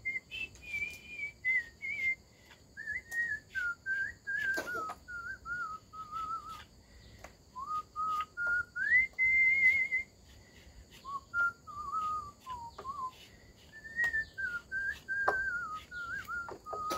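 A man whistling a slow tune, one clear tone stepping up and down in pitch in short phrases. Short clicks and scrapes of a small knife peeling chayote come through between notes.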